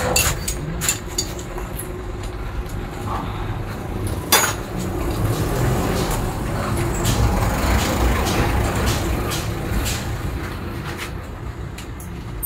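A heavy vehicle's engine running close by, swelling in the middle and fading toward the end, under scattered metallic clicks from a motorcycle inverted fork's spring and damper cartridge being handled. One sharp click comes about four seconds in.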